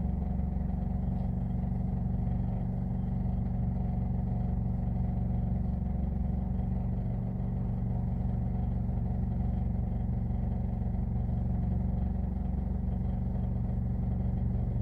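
Steady low engine and road hum of a car, heard from inside the cabin while driving.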